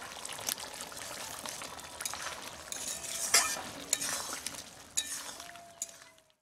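Long metal spatula stirring and scraping through a pot of sizzling duck and potato curry, with irregular scrapes and clinks of metal against the pot, the loudest a little past halfway, fading toward the end.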